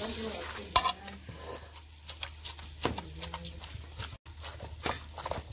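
Spoons stirring food in an aluminium cooking pot, with scattered clicks and knocks of the spoon against the pot's sides.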